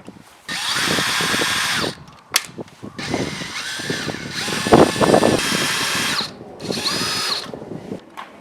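Power drill running in four short bursts, its motor whine speeding up and winding down at each trigger pull, with a sharp click between the first two.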